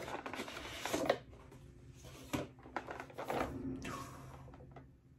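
Cardboard packaging being handled: a boxed figure slid out of a brown cardboard shipping box, rustling and scraping, with a few light knocks about halfway through.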